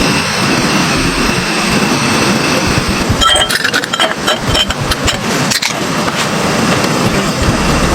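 Strong wind rushing and buffeting, with a run of clattering knocks in the middle.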